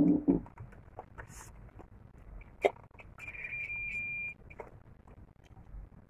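Digital multimeter's buzzer giving one steady high beep about a second long, with a few light clicks and taps of the test probes on the phone's circuit board around it.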